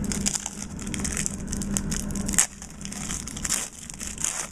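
Crinkling of a trading card pack's plastic wrapper as it is handled and opened, a dense run of sharp crackles with one loud snap about two and a half seconds in, then quieter crackling.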